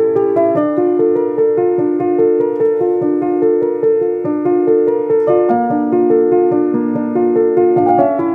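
Background music: a gentle piano melody of evenly repeated notes.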